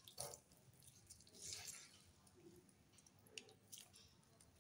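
Faint squelching and dripping as a fistful of salted, finely shredded cabbage is squeezed by hand, its water running back into a steel bowl. A few soft, scattered squelches and drips.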